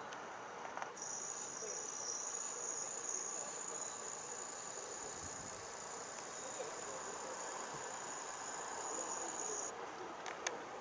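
Thin, steady high-pitched whine of a camcorder's zoom motor, starting about a second in and cutting off suddenly near the end, over an even background hiss of outdoor ambience. A couple of faint clicks follow just after the whine stops.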